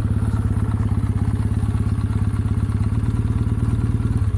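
Kawasaki W650's air-cooled parallel-twin engine running at low revs with a steady, even exhaust beat as the motorcycle rolls slowly up and comes to a stop.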